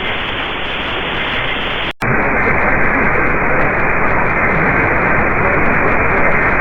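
AM radio static: a steady hiss from an SDR receiver tuned to an AM broadcast with no programme audible. It cuts out for an instant about two seconds in, then comes back slightly louder and duller.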